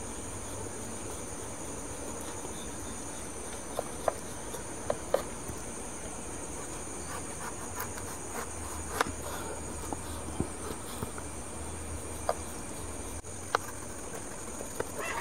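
A knife blade cutting through set carrot burfi, clicking sharply against the metal tray about a dozen times at irregular moments. Under it runs a steady high-pitched background buzz.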